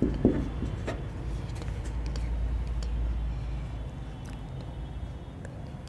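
Marker pen writing on a whiteboard: a few short scratchy strokes in the first second, then fewer, over a steady low hum that fades about four seconds in.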